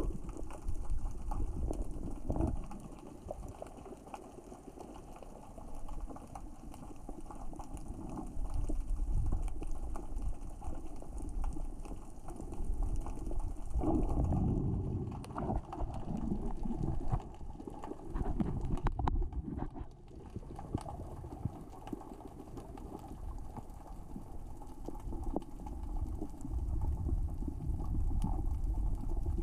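Underwater, small rocks rolling across the sea floor in the current and tide: a dense crackle of small clicks over a low rumble that swells and fades every few seconds.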